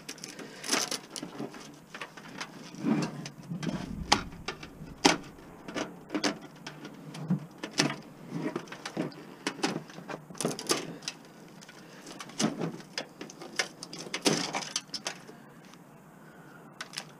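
Aviation snips cutting the wiring out of a sheet-steel computer case: irregular clicks and snips, with the wires rattling against the metal case. It goes quieter near the end.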